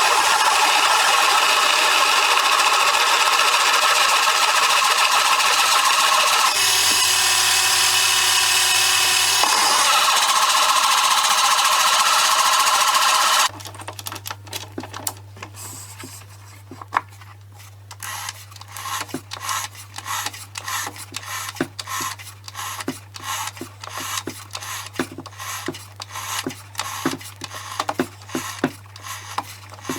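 Electric power tool running steadily, with a shift in its tone for a few seconds midway, then cutting off abruptly about halfway through. After that, a low steady hum with rapid, irregular clicking.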